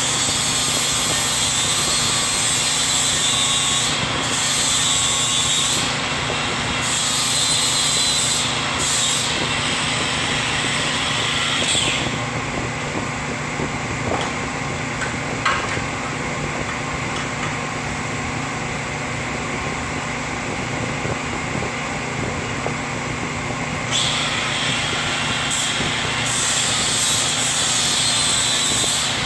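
Milwaukee cordless 4-1/2-inch angle grinder running and grinding metal with a loud, harsh hiss that breaks off briefly a few times. For about twelve seconds in the middle the harsh grinding drops away and the motor runs on, then the grinding starts again near the end.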